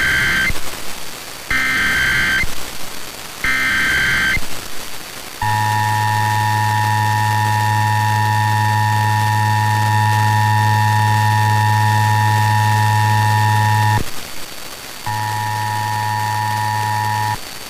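Emergency Alert System test tones from a broadcast station: three short screeching SAME digital header bursts about two seconds apart, then the steady two-tone EAS attention signal with a low buzz under it. The attention signal drops out briefly at about 14 s and comes back until near the end.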